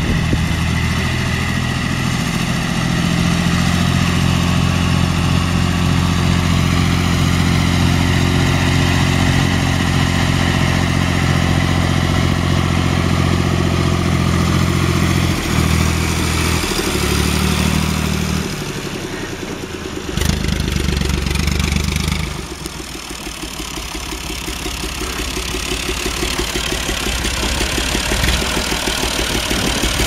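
John Deere 1020's three-cylinder diesel engine running steadily as the tractor drives. About two-thirds of the way through, after a few abrupt changes in pitch and level, it settles to a quieter idle with an even, rhythmic diesel beat.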